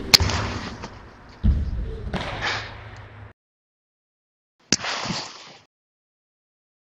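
A sharp crack at the very start, a heavy thud about a second and a half in that fades away, then, after a stretch of dead silence, another sharp slap-like hit that fades out quickly.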